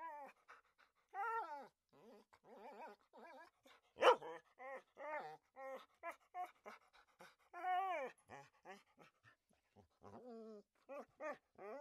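A puppy whining and whimpering quietly, in a string of short high cries that bend in pitch, with a longer drawn-out whine about eight seconds in.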